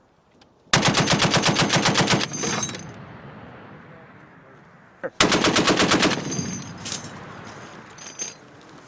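M2 Browning .50-calibre heavy machine gun firing two bursts: one of about a second and a half, then after a pause another of about a second. Each burst is followed by a long rolling echo.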